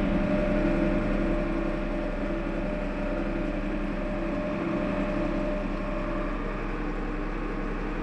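Ford farm tractor's diesel engine running steadily, heard from inside the cab as it drives along pulling a hay feeder: an even hum with a few steady engine tones.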